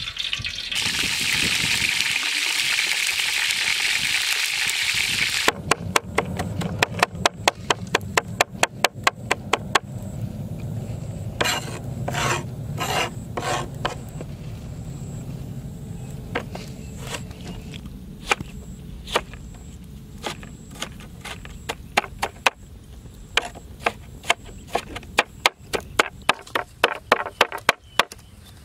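A few seconds of rushing water, then a large kitchen knife chopping on a plastic cutting board: runs of quick, even strikes about three a second with short pauses, as garlic and then tomatoes are cut.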